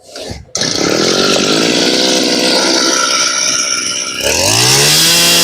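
Echo 265G brush cutter's small petrol engine starting up and catching about half a second in, then running fast. About four seconds in it is throttled up, the pitch climbing sharply to a steady high-speed run.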